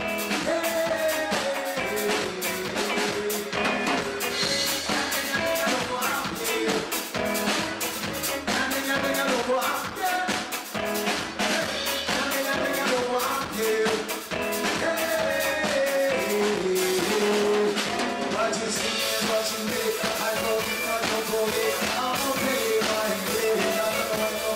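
Live band music: a drum kit keeping a steady beat under electric guitar, with a man singing into a microphone.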